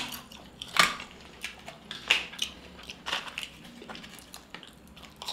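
A person chewing crunchy, chip-like flat fries, giving a series of sharp crunches about a second apart.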